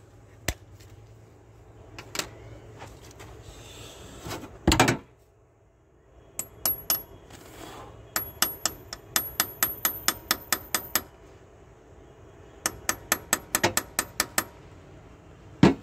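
Quick light hammer taps on a steel spiral screw extractor, each one ringing metallically, as it is driven into a drilled-out broken bolt in an engine's cylinder head. There is one heavier knock about five seconds in, then two runs of even taps, about six a second.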